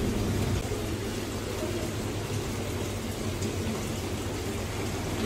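Aquarium water circulation running steadily: an even hiss of moving water with a low hum underneath.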